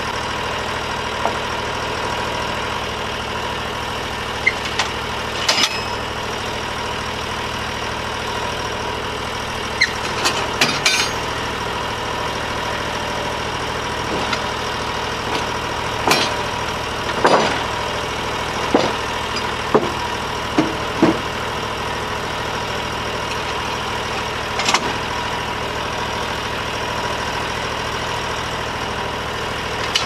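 Engine of a Norwood portable bandsaw mill idling steadily, with scattered sharp knocks and clunks of wooden slabs being pulled off the log and handled.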